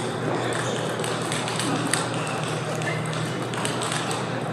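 Scattered sharp clicks of table tennis balls striking bats and tables, over a steady background of indistinct voices and a low hum.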